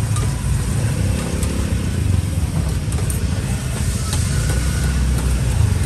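Steady low rumble of busy open-air market background noise, with faint scattered clicks and clatter.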